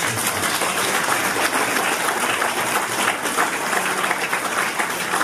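Audience applauding in a hall: many hands clapping at once.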